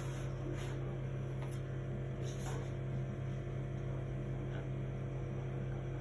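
Steady low electrical hum in the room, with a few faint soft taps and rustles from handling the sand toys.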